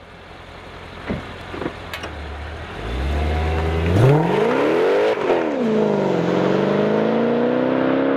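Mercedes C55 AMG's V8 through a Kleemann S7 exhaust, rumbling at low revs with two short blips, then accelerating hard. The pitch climbs steeply about four seconds in, drops back at a gear change and climbs again as the car pulls away.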